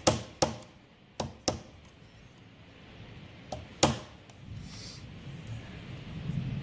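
Hammer blows on metal while the front (gearbox) sprocket of a Triumph 650 engine is being freed: three pairs of sharp ringing strikes, the last pair about three and a half seconds in.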